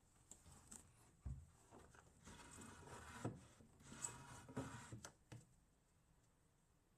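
Faint handling noise: soft rustling and scraping for a few seconds, with a few light knocks and clicks.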